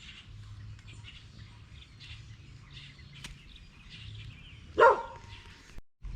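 Faint birds chirping over a low steady hum, with one loud, short dog bark a little under five seconds in.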